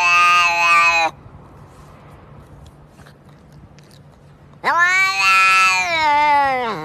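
A domestic cat's long, drawn-out meows: one ends about a second in, and another starts a little past halfway, holds, then falls in pitch at the end.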